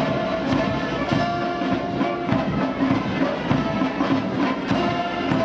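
Military band playing a steady piece with held tones and drums.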